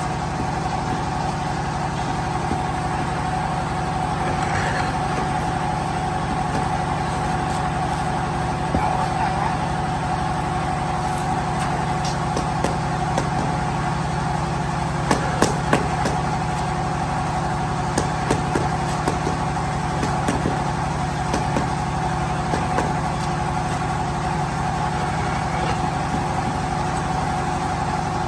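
An engine or motor running steadily with a constant hum, with a scattered run of sharp knocks and clicks from about twelve to twenty seconds in, consistent with floor tiles being set down and tapped into a mortar bed.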